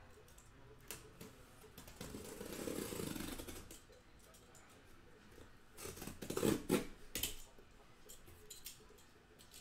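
A cardboard case of sealed hobby boxes being cut and opened by hand: a stretch of scraping about two seconds in, then a cluster of knocks and rustles of cardboard around six seconds in.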